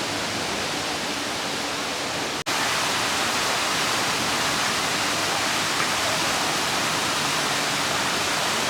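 Steady rushing noise, like running water. It cuts out for an instant about two and a half seconds in, then carries on slightly louder.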